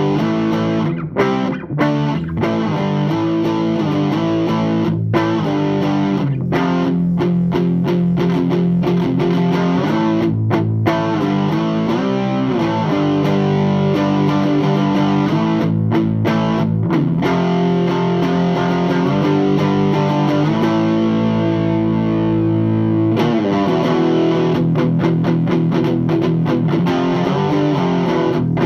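Electric guitar played through a Thick Electronics Thickener overdrive pedal into an Orange Super Crush 100 amp: distorted riffs of chords with short stops, one long held chord, then fast chugging near the end.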